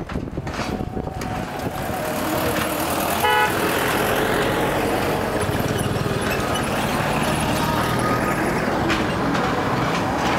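Road traffic heard from a moving motorbike: wind on the microphone at first, then engine and road noise grow louder and hold steady, with one short vehicle-horn toot about three seconds in.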